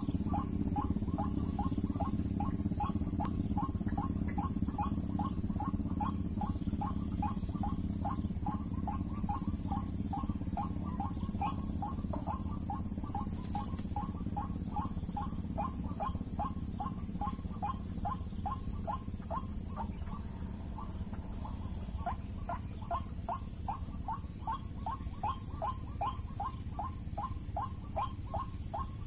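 White-breasted waterhen call: a fast, steady series of short, repeated notes, about three to four a second, with a steady high-pitched whine behind it.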